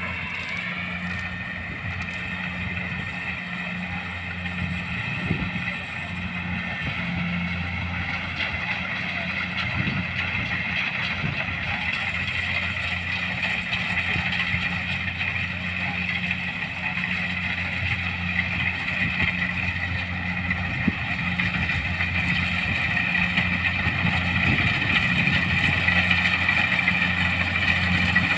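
Kubota combine harvester running steadily while harvesting rice: a constant engine drone with a higher whine above it, growing louder toward the end.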